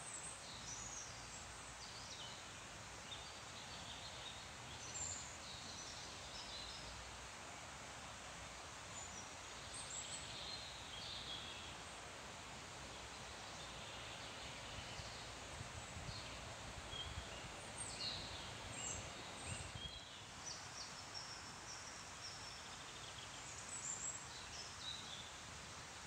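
Birds chirping and singing in short scattered phrases over a steady hiss of rustling trees.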